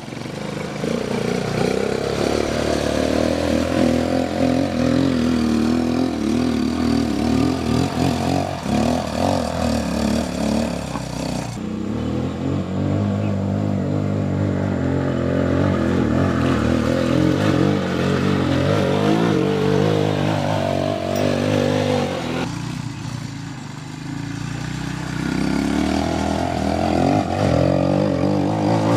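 A 250cc four-wheel-drive ATV engine running as the quad is ridden, its pitch rising and falling with the throttle. The sound changes abruptly twice, about a third and three quarters of the way in.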